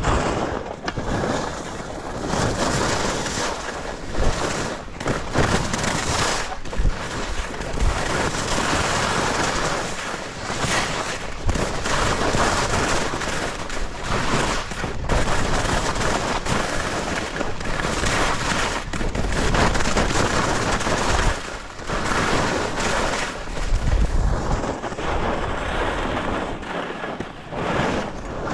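Wind buffeting the microphone with a continuous hiss and scrape of edges over snow during a fast descent of a ski run, swelling and easing in uneven gusts.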